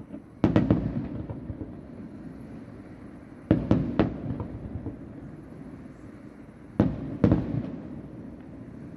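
Fireworks shells bursting about a kilometre away: three volleys of two or three sharp bangs, roughly three seconds apart, each trailing off in an echo.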